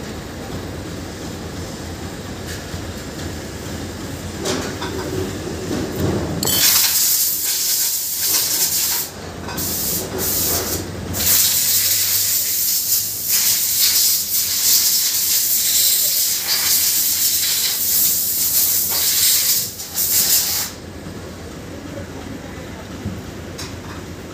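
A steady low rumble, then a loud hiss that starts about six seconds in, breaks off briefly twice, and stops suddenly about twenty seconds in, leaving the rumble.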